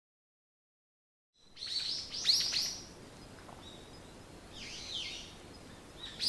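Silence, then birdsong fading in about a second and a half in: a cluster of quick falling chirps, more calls a couple of seconds later and again at the end, over a faint outdoor hush.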